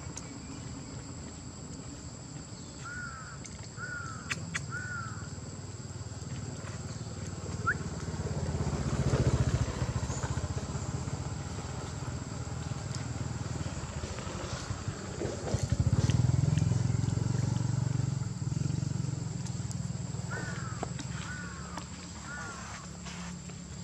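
Outdoor ambience: a low motor rumble, like a passing vehicle, swells up twice. A short call of three quick chirps sounds twice, once early and once near the end.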